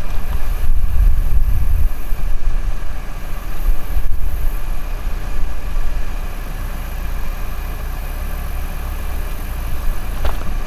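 Low rumble of a vehicle engine idling, louder and more uneven over the first few seconds, then steadier.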